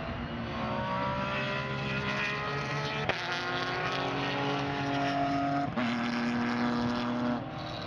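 Porsche 911 GT3 race car's flat-six engine accelerating hard, rising in pitch through the gears. It makes sharp upshifts about three seconds in and again a little before six seconds, then gets quieter near the end as it pulls away.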